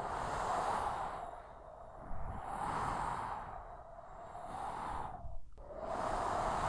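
Strong desert sandstorm wind blowing in gusts that swell and fade every second or two, dropping away sharply for a moment about five seconds in.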